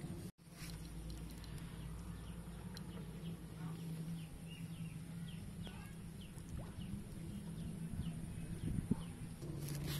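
Small birds chirping over and over in short falling calls, over a steady low hum, with a brief knock about nine seconds in.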